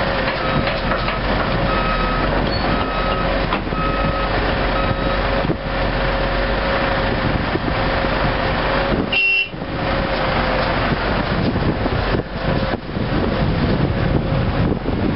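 Caterpillar hydraulic excavator's diesel engine running with a steady whine. For the first five seconds an alarm beeps about once a second.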